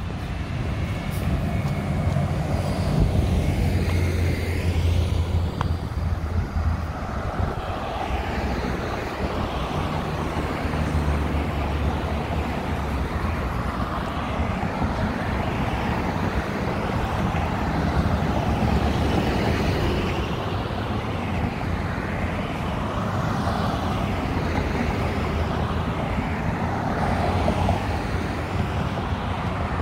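Steady road traffic: cars passing one after another on a multi-lane road, each swelling and fading with tyre noise. A heavy vehicle's low engine rumble is strong in the first few seconds and again about ten seconds in.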